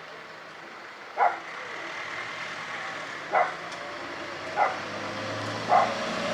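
A dog barking four times, each bark short and spaced one to two seconds apart, over a low steady background.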